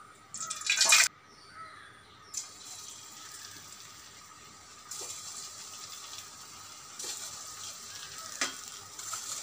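Steel kitchen utensils clatter loudly at first. Then hot coconut oil sizzles steadily as raw potato-and-rice-flour balls are dropped into it, and the sizzle grows louder in steps as more balls go in.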